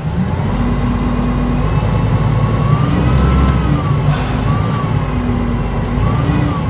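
Bus with a Volvo TD102KF six-cylinder turbodiesel and a Voith DIWA automatic gearbox, running under way. The engine rumble swells to its loudest about three seconds in, over a gearbox whine that rises and then falls, with another lift near the end.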